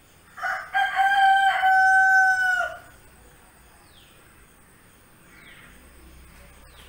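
A rooster crowing once: one long held call of about two and a half seconds, starting about half a second in.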